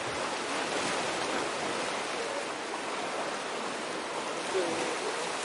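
Steady rush of sea waves, an even hiss with no single break standing out.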